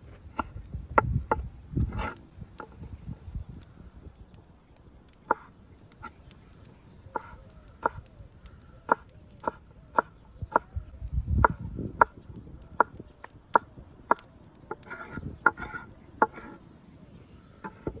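Chef's knife slicing chili peppers on a wooden cutting board: a series of sharp knocks as the blade hits the board, roughly two a second through the middle stretch.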